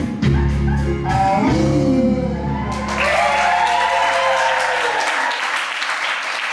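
Samba song ending on held final notes with a sung line gliding over them, the music stopping about five seconds in. Audience applause breaks out about three seconds in and carries on after the music stops.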